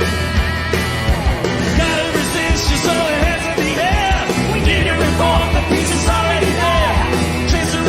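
Loud rock music with a steady drum beat and distorted guitar, joined about two seconds in by a shouted or sung vocal line.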